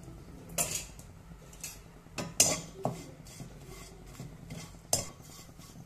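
Plastic slotted spatula stirring and scraping tamarind pieces around a dry kadai as they roast, making about half a dozen brief scrapes and knocks against the pan, the loudest a little over two seconds in.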